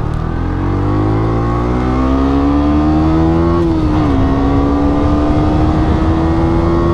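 Husqvarna Svartpilen 125's single-cylinder four-stroke engine accelerating hard, its pitch climbing through one gear, dropping with an upshift nearly four seconds in, then rising again.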